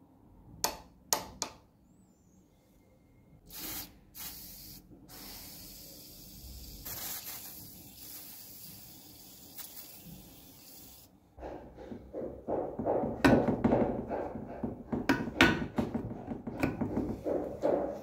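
A couple of sharp metal clicks, then a WD-40 aerosol can spraying: short bursts, then a steady hiss for about six seconds onto a rusty helical screw. After that a wrench grips the knurled nut on the screw and works it, with a louder run of irregular metal clanks and scraping.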